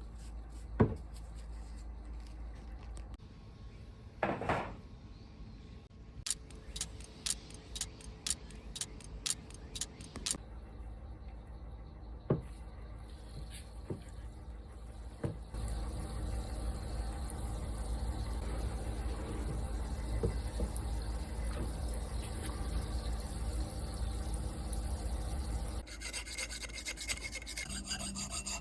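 Rust being scrubbed off a steel axe head by hand: a few knocks and a run of sharp ticks, about two a second, early, then steady rubbing and scraping from about halfway on.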